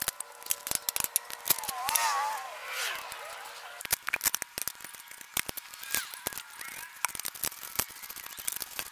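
Socket ratchet clicking and steel bolts and washers clinking against the truck frame as bolts are set and tightened: a run of quick, irregular metallic clicks.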